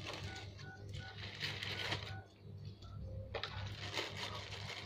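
Brown paper food wrapping rustling and crinkling as a child eats rice by hand, over a steady low hum. A few faint short beeps sound in the background in the first two seconds.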